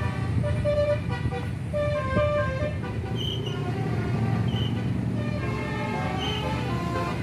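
A tour bus's basuri telolet horn playing a melody of stepped notes over the low rumble of the bus's engine.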